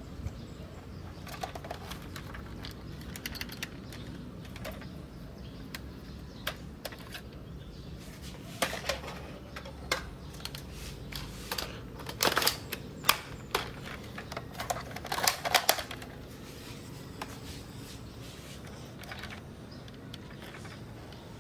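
Irregular clicks and clatter of an airsoft L96A1 sniper rifle's parts being handled, in clusters that come thickest and loudest in the middle.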